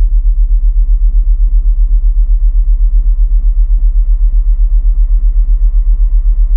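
A loud, very deep hum that throbs evenly about six or seven times a second, with faint soft ambient music tones above it.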